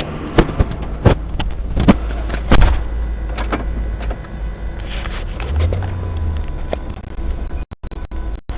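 Sharp knocks and clicks, about five in the first three seconds, over a steady low rumble, heard through a doorbell camera's microphone; the audio cuts out in short gaps near the end.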